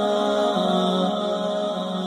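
Background music of held notes that step to new pitches every half second or so, with no clear beat.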